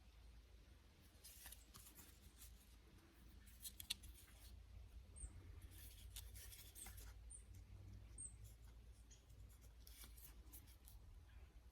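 Near silence with faint, irregular scratching and rustling, like something being rubbed or handled, and a few tiny high chirps around the middle.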